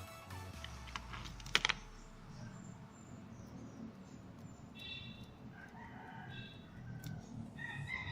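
A few sharp clicks, then bird calls in the background: short calls from about five seconds in and a longer, drawn-out call near the end.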